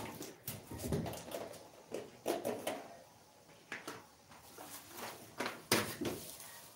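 A few scattered sharp clicks and knocks with short rustling sounds in between, like handling noise.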